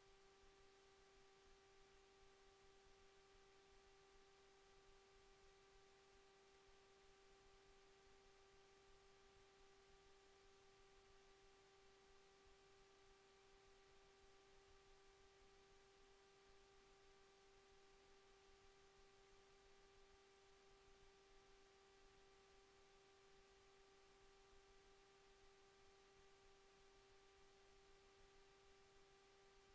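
Near silence: a faint, steady, unchanging hum with a few fainter overtones above it, over low hiss.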